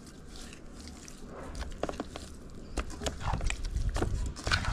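Bare hands working seasoning into raw fish fillets in a non-stick frying pan: soft wet squelches and scattered small clicks, with a low rumble building up in the second half.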